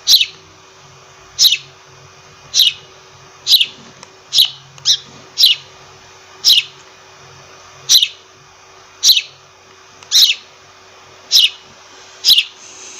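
Sparrow chirping: a string of short, single cheeps, each sliding down in pitch, about one a second.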